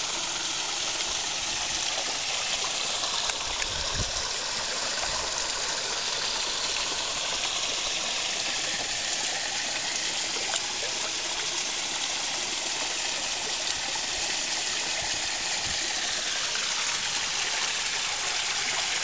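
Small garden-pond waterfall spilling over stone into the pond, a steady, even rush of splashing water.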